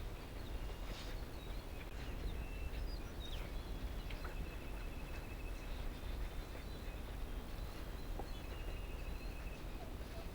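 Small birds chirping and whistling in short calls over a steady low rumble, with a long high trill that comes and goes.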